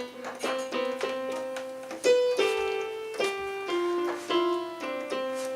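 A simple melody played slowly on a keyboard, one note at a time at about two notes a second, with a lower note held under some of them.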